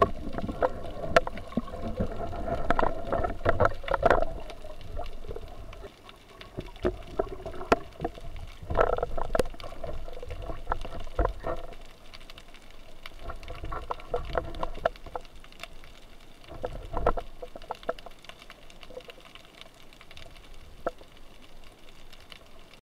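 Muffled underwater sound picked up through a camera housing: water moving and gurgling, with scattered sharp clicks and knocks.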